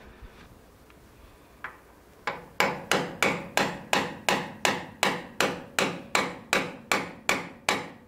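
Hammer blows on a steel puller clamped to a lathe gearbox shaft, metal on metal, to work a worn, peened-in bearing and shaft loose. After a single light tap, steady strikes start a couple of seconds in, about three a second, each ringing briefly.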